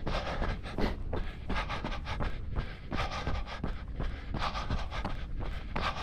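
A runner's own breathing, rhythmic panting close to the microphone, with footfalls on the path.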